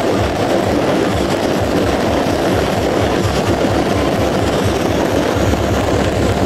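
Beehive fireworks, a rack of bottle rockets, firing in a continuous dense barrage: a loud, unbroken rush of noise with a fast low pulsing of about five a second.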